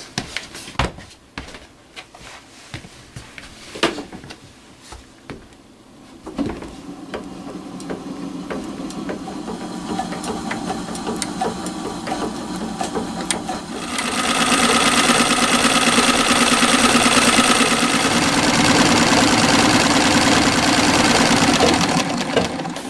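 Restored 1899 Singer Model 27 sewing machine: a few scattered clicks, then the mechanism starts running about six seconds in, steady and rapid, and runs louder and faster from about halfway until it stops just before the end.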